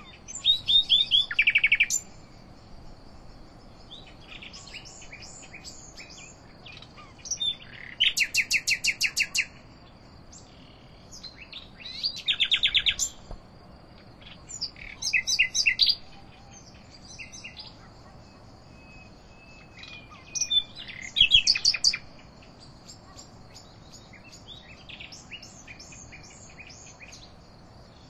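A songbird singing in short separate phrases a few seconds apart, several of them fast runs of evenly repeated notes, over a steady high-pitched buzz of insects.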